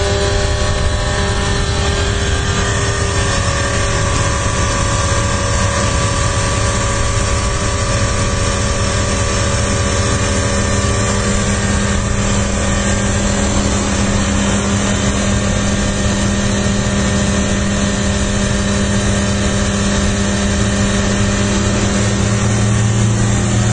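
An engine running steadily at a constant speed, giving a low, even drone with no revving or change in pitch.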